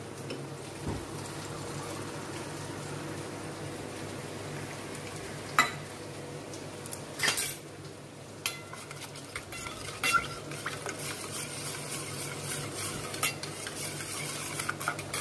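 A metal spoon stirring and clinking against steel cookware, with sharp clinks a few seconds apart. From about halfway through, oil starts sizzling in the pot. A steady low hum runs underneath.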